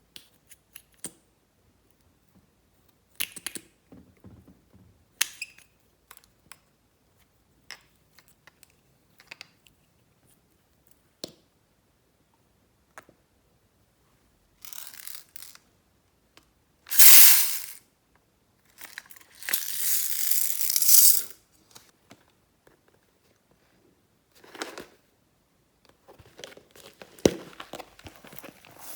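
Hands squishing and stretching glossy slime: scattered sticky clicks and pops, then louder crackling, crinkling squelches in bursts, the loudest about halfway through and a longer one a few seconds later.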